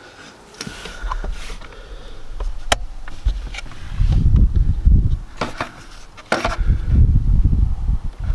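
Wind buffeting the microphone in gusts, strongest about four and seven seconds in, with a few sharp clicks and knocks from handling.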